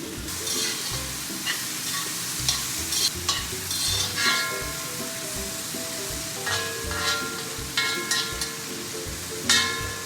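Cabbage stir-frying in hot oil in a wok: a steady sizzle, with a spatula scraping and clacking against the wok as it is tossed.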